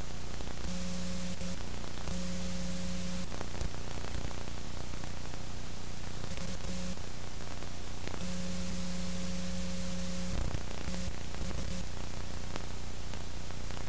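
Steady static hiss with a low electrical hum underneath; a buzzing tone cuts in and out several times.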